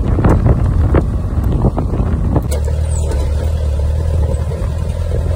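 A car driving on a country road, with wind gusting across the microphone over the low rumble of the engine and tyres. About halfway through, the gusts die down and it settles into a steadier low drone.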